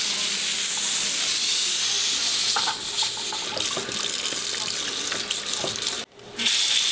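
Kitchen tap running onto a pressure cooker lid in the sink, water splashing over it to cool the pot and bring its pressure down, with a few light knocks of the pot in the basin. The sound drops out suddenly about six seconds in, then the hiss returns.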